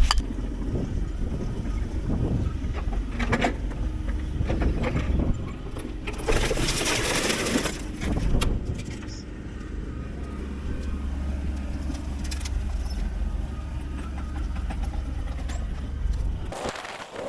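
Truck engine running with a deep, steady rumble, with a brief hissing rush about six seconds in and a few knocks; the rumble cuts off shortly before the end.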